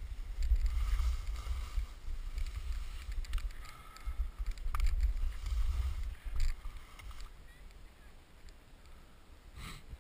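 Wind buffeting the microphone of a camera worn by a downhill skier, a gusty low rumble, over the scrape and hiss of skis carving through chopped-up snow. The wind rumble eases about three-quarters of the way through as the skier slows.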